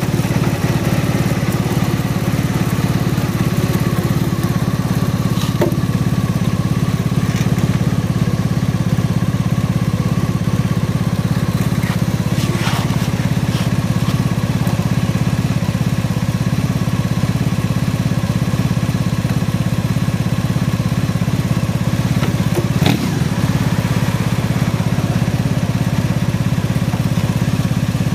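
Motorcycle engine idling steadily at an unchanging pitch while the bike stands still, picked up by a camera mounted on the bike behind the windshield. A few short clicks sound over it, the clearest about twelve and twenty-three seconds in.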